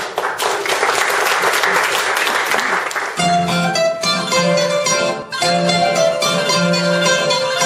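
Audience applause for about three seconds, then a rebetiko band starts playing: bouzouki-type plucked lutes and guitar picking out a tune over a regular beat.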